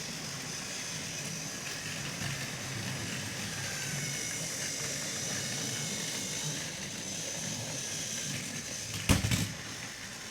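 Motorized TrackMaster Thomas toy engine running along plastic track: a steady high small-motor whine over a low rattle of wheels, with a brief clatter about nine seconds in.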